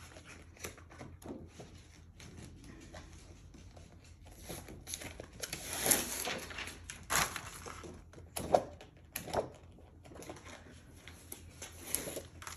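Paper rustling from peel-and-stick puzzle saver sheets being handled and their backing peeled, with hands pressing the adhesive sheet onto the back of a jigsaw puzzle. Scattered rustles and light taps, with a few louder swishes in the middle.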